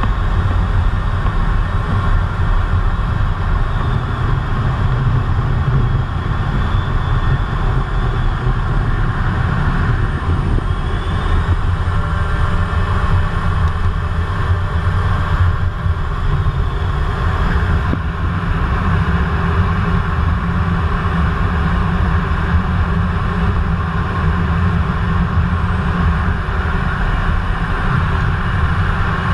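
Steady roar of a Eurofighter Typhoon's twin Eurojet EJ200 turbofans and rushing airflow, heard from inside the cockpit in low-level flight.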